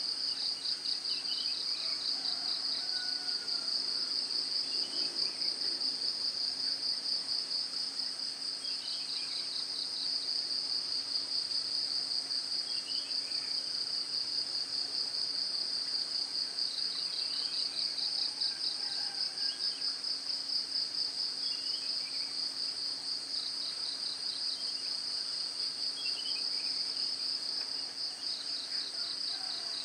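Dense insect chorus: a steady, fast-pulsing high trill. Short falling bird calls come every few seconds.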